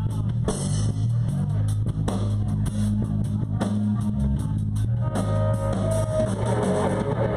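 Live rock band playing an instrumental passage: bass guitar notes and a steady drum-kit beat under electric guitar, with held higher notes coming in about five seconds in.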